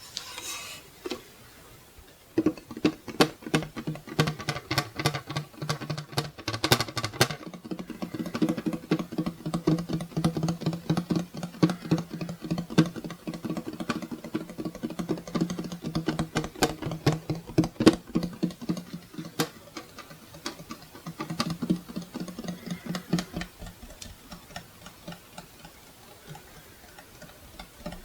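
Rapid tapping on a wall clock's metal and plastic case, starting about two seconds in. The taps come as fast runs of sharp clicks over a low, resonant hum from the clock's body, and thin out near the end.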